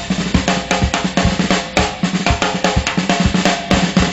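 Drum kit played live: a fast, even run of bass drum, snare and cymbal strikes, about five or six a second.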